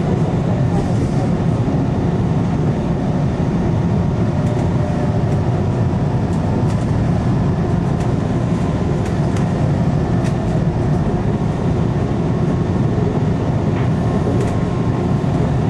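Steady rumble of a rail car running, heard from inside, with a faint whine and occasional faint clicks over it.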